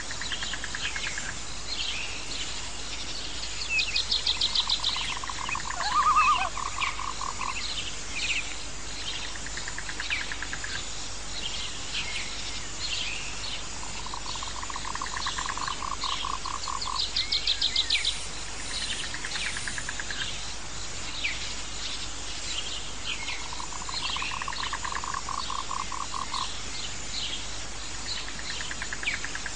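Nature ambience of animal calls: a low pulsed trill repeats three times about ten seconds apart, each lasting some three seconds, with a higher pulsed trill and many short falling chirps over a steady hiss.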